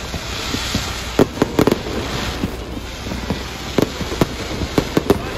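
Fireworks bursting: sharp bangs, a quick cluster about a second in and several more spaced out near the end, over a crackling hiss.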